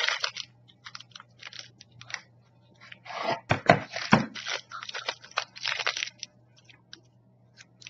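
Plastic snack packaging crinkling and rustling in irregular bursts as packets are handled, loudest about three to four seconds in.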